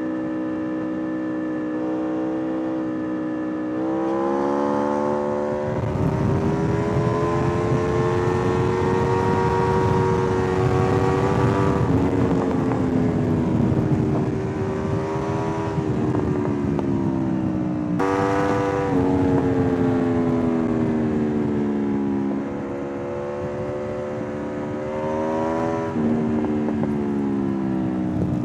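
2013 Aprilia RSV4 R APRC's V4 engine under way, its pitch stepping up and down several times as it shifts gear and changes speed. Wind rushes over the microphone from about six seconds in.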